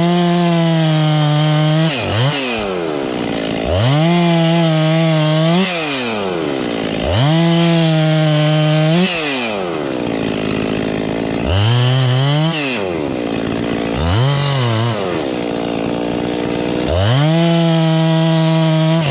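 Husqvarna two-stroke chainsaw revving to full throttle and dropping back to idle six times, each burst held one to two seconds while it cuts through a fallen tree's trunk; the fifth burst is shorter and lower.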